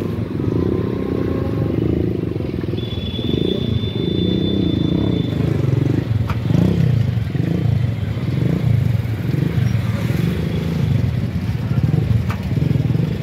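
Street traffic noise dominated by motorcycle engines running close by. A thin high tone sounds for a couple of seconds about three seconds in.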